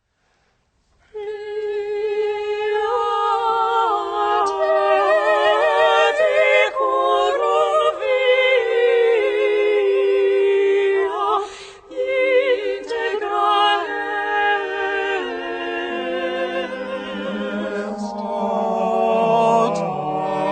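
A singer's voice with vibrato, moving from note to note, beginning about a second in after silence, with a brief breath pause near the middle. A lower part joins about three-quarters of the way through.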